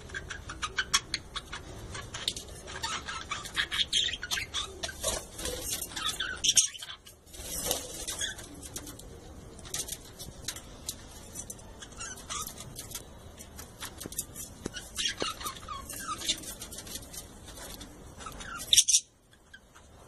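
Flock of budgerigars chattering: a dense stream of rapid chirps and warbles with a brief lull about seven seconds in, ending with a loud burst and a sudden cut-off near the end.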